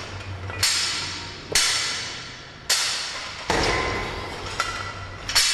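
A series of six sharp hits, roughly one a second, each ringing away over most of a second.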